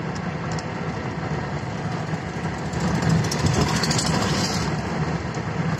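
Engine and road noise of a moving vehicle heard from inside the cabin, a steady low drone, with a brief rise of hiss about four seconds in.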